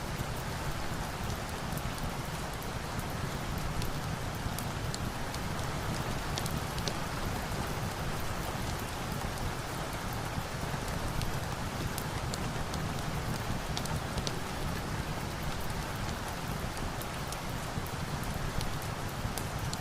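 Steady rain falling, an even hiss, with scattered sharp crackles of a log fire in a fireplace.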